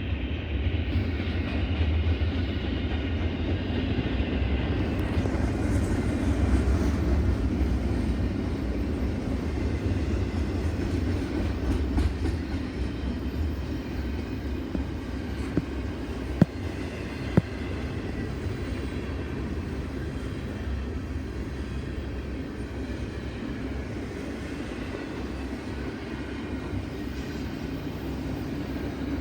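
A train rolling past, its cars making a steady low rumble with clickety-clack from the wheels on the rails. Two sharp clicks come a little past the middle.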